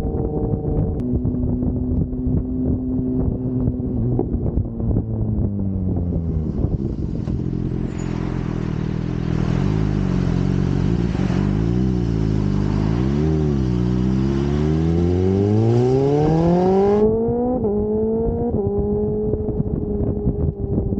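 Sport motorcycle engine under way. Its note steps down about a second in and sinks over the next few seconds, wavers low, then climbs steadily for about three seconds before dropping twice in quick steps as it shifts up near the end, with wind rushing past.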